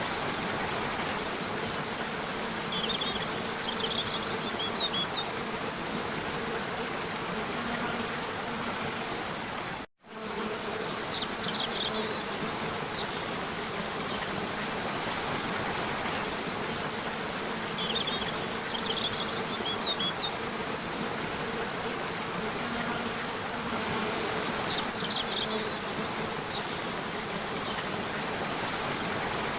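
Steady buzzing of insects forming an even natural background, with short high chirps recurring about every seven seconds. The sound cuts out for an instant about ten seconds in.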